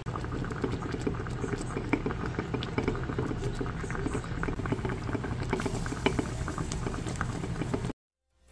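Rice boiling over in a clay donabe pot: starchy foam bubbling and popping around the lid in a steady crackle of many small pops. It cuts off abruptly near the end.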